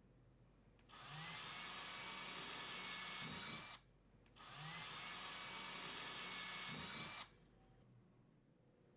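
A power drill boring two pilot holes for the dispenser's wall fasteners. There are two runs of about three seconds each, and each starts with a short rising whine as the drill spins up and then runs steadily until it stops.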